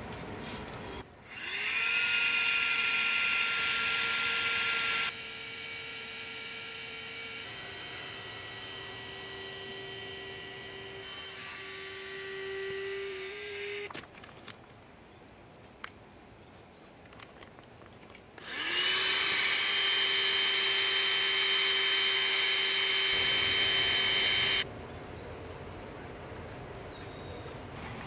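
A small handheld electric air pump whirring as it inflates an air sofa: the motor spins up with a rising whine about a second in, runs steadily, goes quieter for several seconds, stops around fourteen seconds, then spins up again just before nineteen seconds and cuts off about six seconds later.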